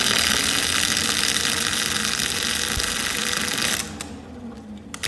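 Old single-phase 2-horsepower drill-press motor with starting brushes switched on, giving a loud crackling buzz as its dirty brushes arc. It is drawing heavy current without coming up to speed. It cuts off almost four seconds in and is switched on again at the very end.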